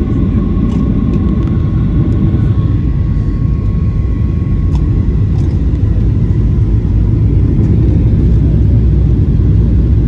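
Boeing 737 cabin noise on the descent to landing: a loud, steady low rumble of the engines and airflow heard from a window seat. A faint steady whine underneath stops with a small click about halfway through.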